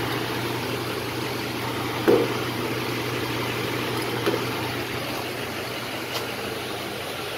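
Small electric blower running steadily over the sending-unit opening of a fuel tank, drying the fresh anti-rust coating inside. A couple of brief knocks come about two and four seconds in.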